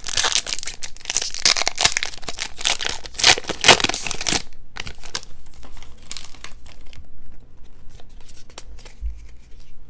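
Foil wrapper of a Japanese Pokémon card booster pack crinkling and tearing open for about four seconds, then lighter rustles and clicks as the cards are handled.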